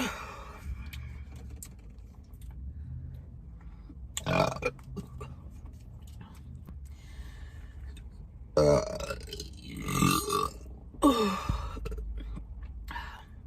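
A woman burping several times: a short burp about four seconds in, then three longer, louder ones close together in the last third, the last one falling in pitch.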